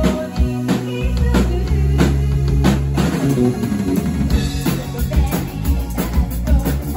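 Live pop-rock band playing: a drum kit beating a steady rhythm with keyboard over deep sustained bass notes.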